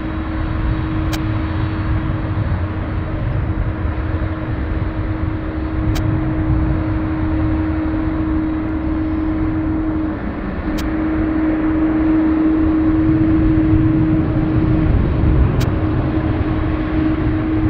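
Boeing 767-200ER's twin turbofan engines running at low power as the jet taxis: a steady hum over a low rumble, growing a little louder about twelve seconds in.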